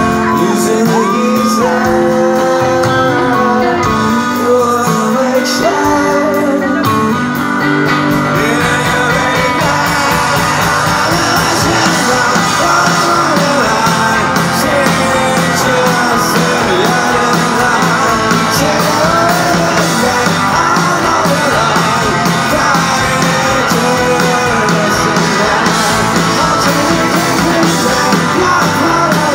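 Rock band playing live: a male voice sings over electric guitars and drums. The bass end fills out about eight seconds in as the full band comes in harder.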